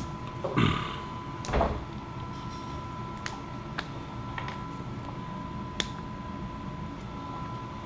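Small workbench handling sounds: two short scrapes about half a second and a second and a half in, then a few light clicks spaced a second or so apart, over a faint steady hum with a thin high tone.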